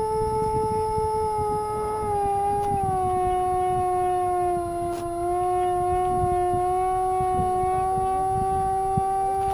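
Twin electric ducted fans of a radio-controlled A-10 model whining in flight with a steady high tone, over rough wind rush on the microphone. The pitch falls two to three seconds in as the throttle is eased back, then creeps slowly up again.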